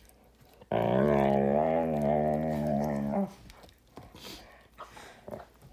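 Giant Schnauzer giving one long, low, steady growl of about two and a half seconds, starting about a second in, guarding his chew bone while a hand holds the other end of it. Softer mouth and bone noises follow.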